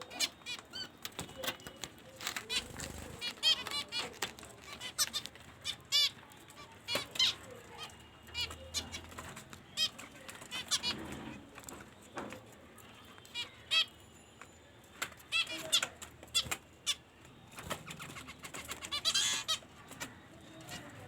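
Birds at a feeding spot calling: many short chirps scattered irregularly, with a dense run of calls about nineteen seconds in.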